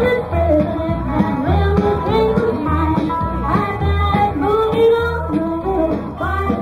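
Music with a singing voice, guitar and a steady, repeating bass line.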